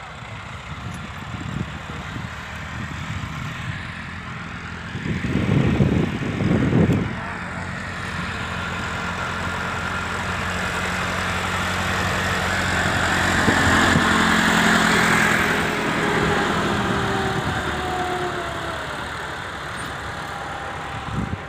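Tractor engine running steadily under load while it pulls a ridging implement through the soil, growing louder toward the middle and then easing off. Two short low rumbles come about five and seven seconds in.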